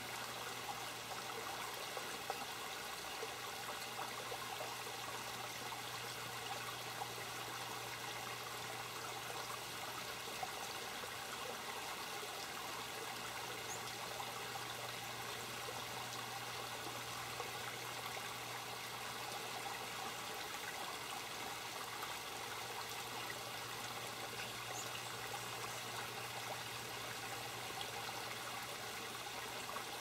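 Garden water feature's water trickling steadily over rocks into a shallow pool, with a low steady hum underneath.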